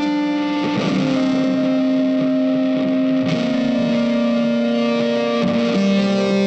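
Background music: a slow melody of long held notes, each changing to the next about every two to three seconds.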